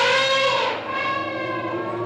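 Asian elephant trumpeting: a loud, brassy call with many overtones, strongest in the first second, then going on more quietly to the end.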